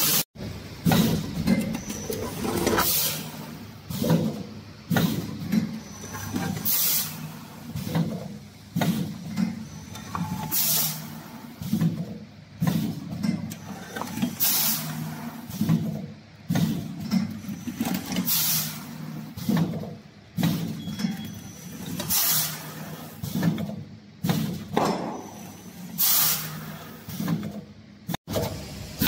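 Vertical form-fill-seal packing machine with a volumetric cup filler running through its bagging cycle on grain: a rhythmic mechanical clatter with a short, sharp hiss about every four seconds.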